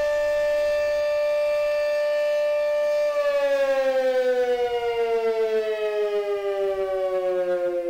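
Fire siren holding a steady high note, then about three seconds in starting to wind down, its pitch sliding slowly lower while the loudness pulses up and down.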